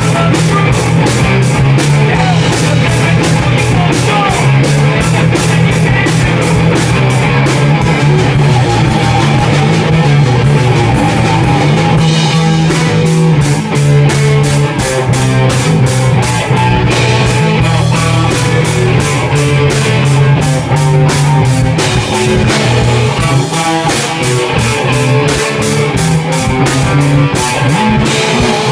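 A rock band playing live: electric guitar and electric bass over a drum kit, with a steady cymbal beat throughout.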